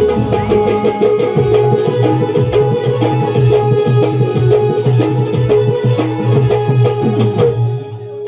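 Music with a steady percussive beat over a sustained bass; it thins out and drops in level near the end.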